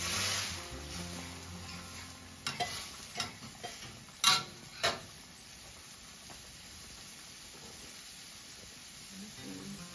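Metal ladle stirring soup in a steel wok, scraping and clinking against the pan, then two sharp knocks of the ladle on the wok about four and five seconds in. After that the soup cooks on the gas burner with a low steady hiss.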